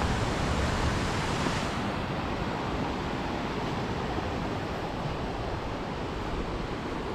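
Steady rush of ocean surf mixed with wind noise on the microphone; the hiss eases slightly about two seconds in.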